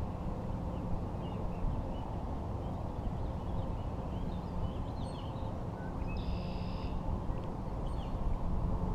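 Birds chirping and calling over a steady low rumble, with one longer call about six seconds in.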